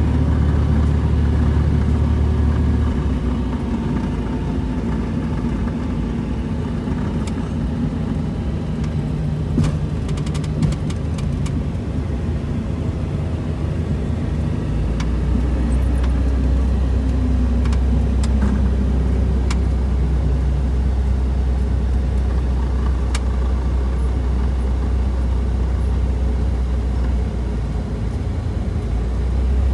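Cessna 172 piston engine heard from inside the cabin, running at low power while the plane rolls out and taxis after landing: a steady drone whose pitch shifts a few times. A few light clicks about ten seconds in.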